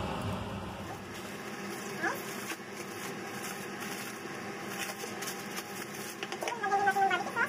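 Aluminium foil crinkling and rustling as a foil packet of ribs is unwrapped by hand. Near the end comes a short, louder squeak.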